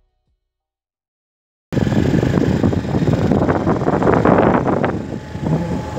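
Silence for about the first second and a half, then loud wind buffeting the microphone of a camera carried in a moving vehicle: a rough, crackling rumble that starts suddenly.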